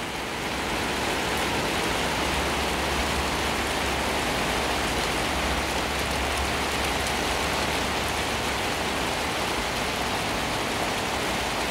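Heavy rain falling steadily on garden plants and wet paving, an even, unbroken hiss.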